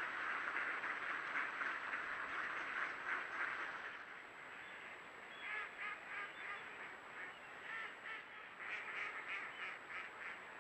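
A large flock of ducks calling. It is a dense chatter of many overlapping calls at first, thinning after about four seconds to separate calls from single birds.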